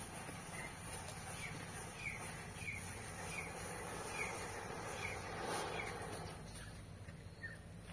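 A bird chirps over and over in short, high, falling notes about every two-thirds of a second. Under it is a faint hiss from burning matches and a firecracker flaring, which swells about four to six seconds in. There is no bang.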